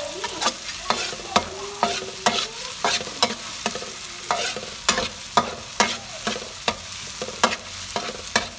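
Garlic and red chili sizzling in hot oil in a pan while being stir-fried, the spatula clacking against the pan about twice a second with scraping in between.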